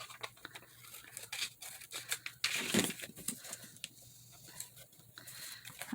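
Paper being handled and pressed down on a craft table: intermittent rustling with light clicks and taps, busiest a little before the middle and quieter toward the end.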